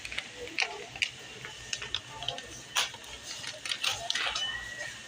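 Scattered taps, clicks and short rustles of grocery items and packaging being handled.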